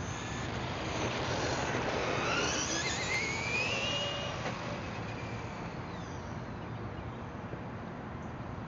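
Traxxas Rustler VXL RC truck's Velineon 3500 brushless motor and geartrain whining as the truck accelerates on a 3S LiPo, the pitch rising steadily for about three seconds, then fading as the truck gets far off.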